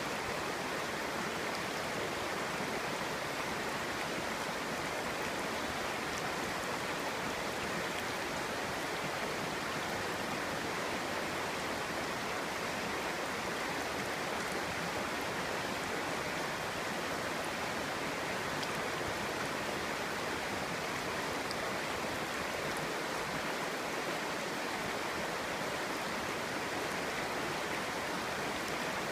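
Clear stream flowing and babbling over rocks, a steady rushing murmur of water.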